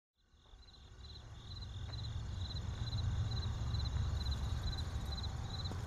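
Crickets chirping in an even rhythm, about two pulses a second, over a low steady rumble. Both fade in from silence over the first couple of seconds.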